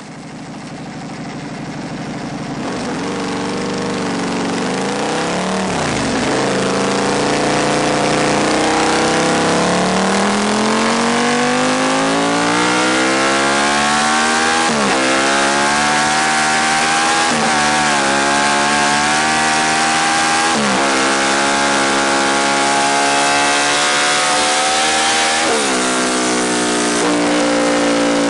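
Aprilia RSV Mille's V-twin engine, breathing through a carbon MotoGP-style silencer, revved hard over and over: the pitch climbs, then falls suddenly as the throttle shuts, about five times. The sound builds in loudness over the first several seconds and then stays loud.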